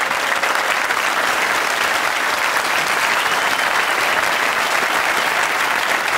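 Large studio audience applauding with steady, dense clapping.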